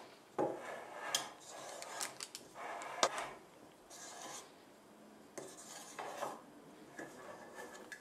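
Spatula scraping and smoothing thick cake batter in a metal springform pan: uneven scraping strokes with a few sharp clicks against the pan, the sharpest about three seconds in.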